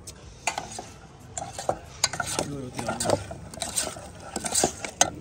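Metal utensils stirring, scraping and clinking against pots and plates: a string of short clicks and scrapes.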